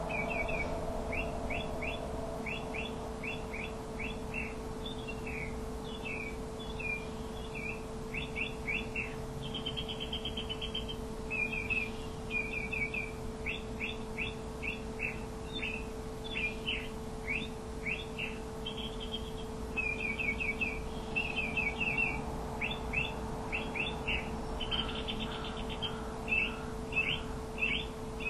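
Small birds chirping, a quick series of short, sharp notes repeated over and over with brief trills, over a steady low hum.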